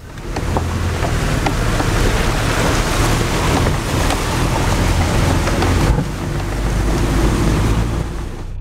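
Loud cab noise from a four-wheel-drive vehicle driving over a rough gravel track: the engine's steady drone under heavy rumble, with many small rattles and knocks. It eases a little about six seconds in.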